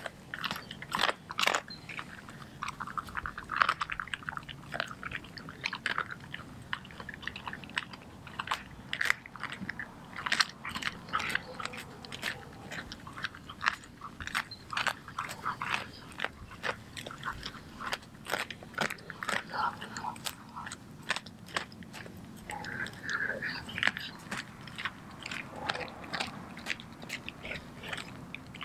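A Doberman chewing a whole raw chicken with the feathers on, with sharp, irregular crunches as it bites through the bird's bones.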